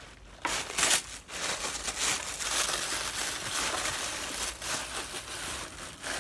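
Tissue paper crinkling and rustling as hands dig through it in a cardboard shoebox and lift out a paper-wrapped sneaker, with two louder crackles in the first second.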